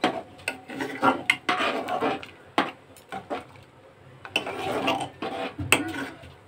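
Metal ladle stirring sambar in an aluminium pressure cooker, scraping round the pot in irregular strokes with a few sharp clinks against its metal side.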